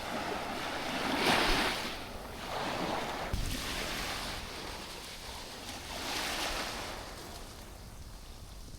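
Sea waves breaking and washing up a sandy beach: three swells of surf, the loudest about a second in.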